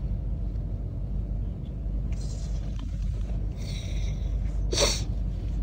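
Steady low rumble of room noise, with a whiteboard marker scratching and squeaking across the board in short strokes about two and four seconds in.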